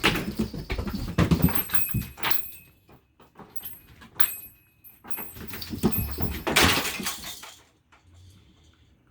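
Pet monkeys playing with toys: irregular knocks, rattles and rustling, with a few brief high metallic rings, and quieter near the end.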